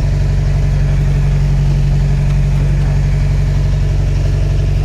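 Diesel generator engine running steadily at a constant speed, a loud low drone with a fast even pulse.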